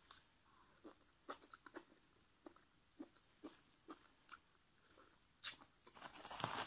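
Close-mouthed chewing of soft termite-mushroom curry and sticky rice, with small wet clicks and smacks every half second or so. Near the end a louder rustle.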